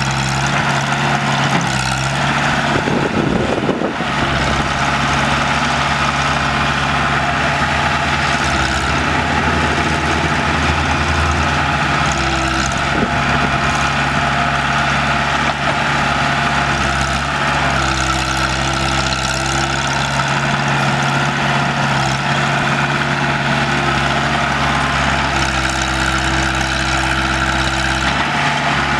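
Heavy diesel engine running steadily as a crawler excavator works a sand pile beside a dump truck, its low drone swelling slightly at times under load.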